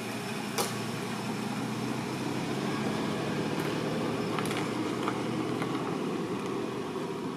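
Steady low outdoor background rumble with a few short sharp clicks, the loudest about half a second in.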